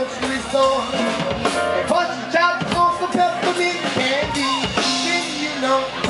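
A New Orleans traditional jazz band playing live, the drum kit prominent, with a man's voice singing into a microphone over it in sliding pitches.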